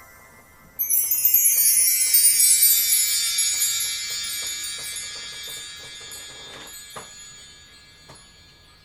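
A bright, shimmering cluster of high chiming bell tones that comes in suddenly about a second in and fades slowly over several seconds, with two faint clicks near the end.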